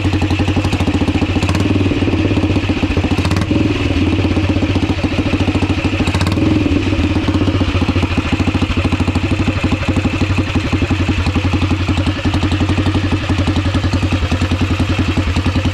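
Tuned Ariel 500 single-cylinder motorcycle engine running at a steady idle with an even beat, with a few short rises in revs in the first half.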